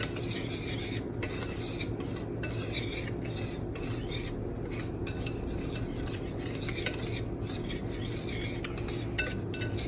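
Wire whisk stirring dry flour mixture in a large ceramic bowl: rhythmic scratchy strokes of the wires through the flour and against the bowl, over a low steady hum.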